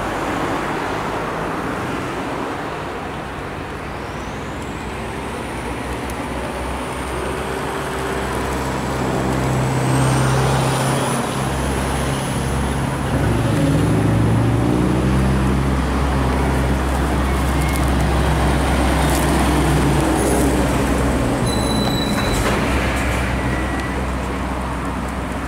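Heavy road vehicle engine running with a steady low hum, louder from about ten seconds in, over general traffic noise. A thin high whine sits above it.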